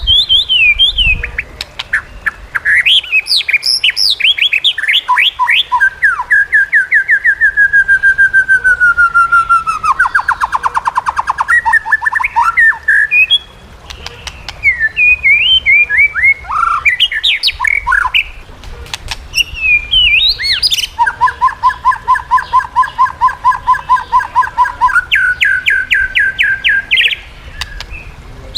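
White-rumped shama singing a long, varied song: clear whistles and sliding notes, fast trills, and a long run of rapid repeated notes on two pitches in the second half.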